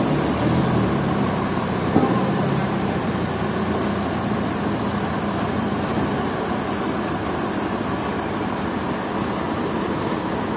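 Engine-driven sawmill machinery running steadily, with a single sharp knock about two seconds in.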